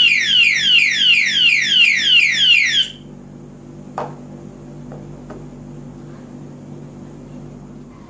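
A Kinbar alarm padlock's built-in siren sounds continuously, a loud rapid series of falling electronic sweeps at about four a second, the full alarm it gives when touched a second time while armed. It cuts off suddenly about three seconds in, and a sharp click follows about a second later.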